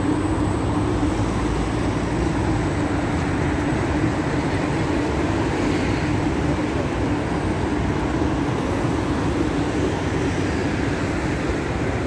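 Steady city road traffic and commuter-train noise, an even rumbling hum with no distinct events.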